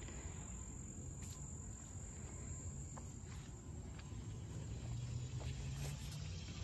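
Steady high-pitched insect trill over a low rumble, with a few faint soft clicks and rustles.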